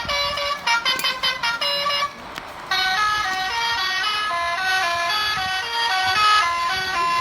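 Basuri 'telolet' bus horn, a multi-tone musical air horn, playing a melody. It sounds quick short notes for about two seconds, pauses briefly, then plays a tune of longer stepped notes.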